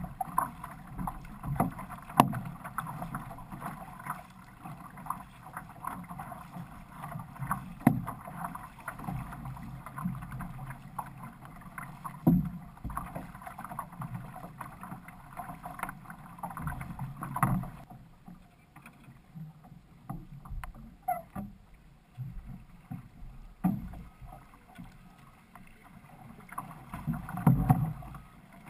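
Water splashing and rushing along the hull of an outrigger canoe being paddled, with irregular louder splashes from paddle strokes. It quiets about two-thirds of the way in as the canoe slows in shallow water, with a louder splash near the end.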